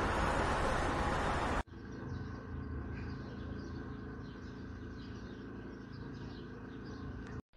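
Outdoor background of a phone recording: a steady rushing noise for about the first second and a half, then a sudden drop to a quieter background with a low steady hum and faint bird chirps.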